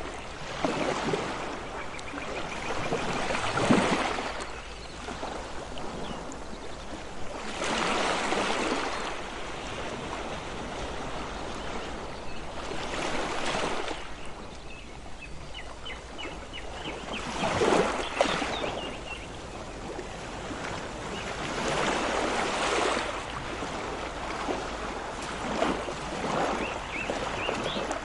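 Ocean waves breaking and washing in, the surf noise swelling and falling back about seven times, every four to five seconds.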